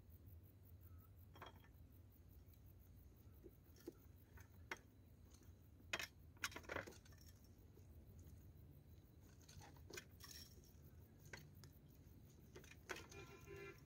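Faint, scattered light taps and clinks of cooking utensils and dishes being handled, with a brief ringing clink near the end.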